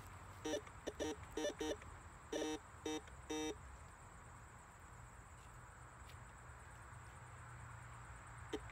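Metal detector sounding a run of short, buzzy beeps, about eight in the first three and a half seconds, some wavering in pitch, then quiet, with more beeps starting again near the end: the tone of metal in the ground under the coil.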